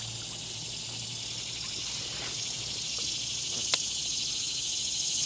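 Steady, high-pitched drone of a summer insect chorus, with a single sharp click about three and a half seconds in.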